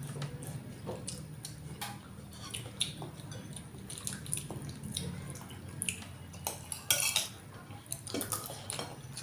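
Spoons and forks clinking on plates and soup bowls during a meal: scattered light clicks throughout, a denser run of them about seven seconds in, over a faint steady low hum.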